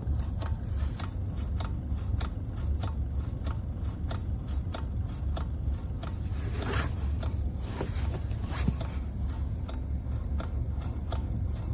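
Sharp clicks from the steering of a 2016 Hyundai Elantra AD as the wheel is turned back and forth, about two a second, over a steady low hum. The owner traces the knock to the electric power steering unit, not to play in the steering shaft joint; it appears in sub-zero temperatures and goes away once the cabin warms.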